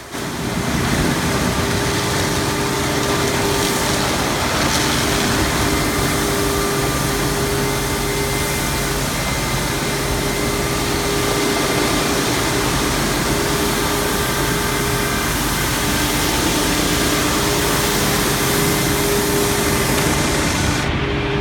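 Automatic tunnel car wash at work: spinning cloth brushes and wraps and water spray against a car. The wash machinery keeps a steady hum with several steady tones underneath.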